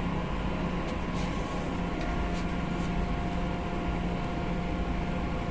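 A ship's machinery running steadily while underway: a constant low hum with a faint steady higher tone under an even rushing noise.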